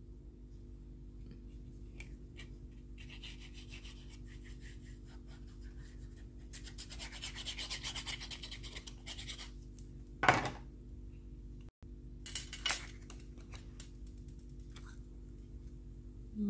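Glue stick rubbed across the back of a piece of cardstock: soft scratchy rubbing that starts about three seconds in, grows a little louder and stops near ten seconds, then a sharp click and a fainter click a couple of seconds later.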